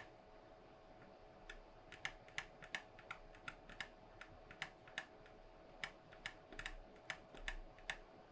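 Irregular small, sharp clicks and pops from drag-soldering the pins of a surface-mount chip with a Miniware TS80p soldering iron, about twenty of them, starting about a second and a half in. A faint steady hum runs underneath.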